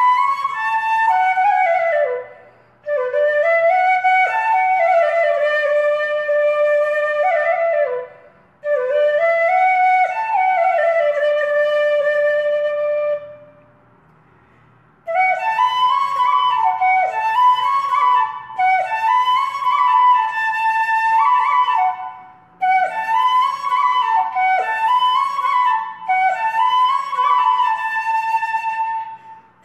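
Background music: a solo flute playing a slow melody with sliding, ornamented notes, in phrases separated by short breaks, with a longer silent gap a little before halfway through.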